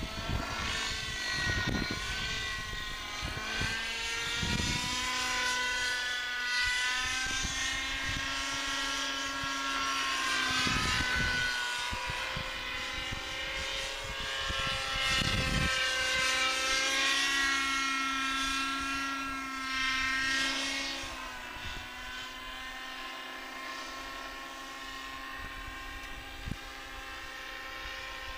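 Radio-controlled model helicopter of around 600 size, its rotor and drivetrain whine rising and falling in pitch as it flies through 3D manoeuvres overhead. The sound drops off somewhat about three-quarters of the way through as it moves away. Bursts of low wind rumble hit the microphone now and then.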